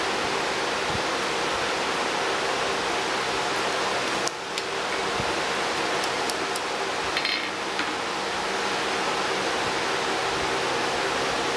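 Steady rushing noise of a running forge with a faint hum under it, and a few light metallic clinks as tongs, pliers and hammer touch the anvil, the brightest about seven seconds in.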